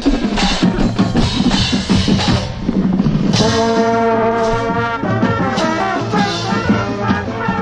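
Marching band playing: quick percussive hits for about the first three seconds, then the brass section comes in with loud sustained chords, one brass horn right at the microphone.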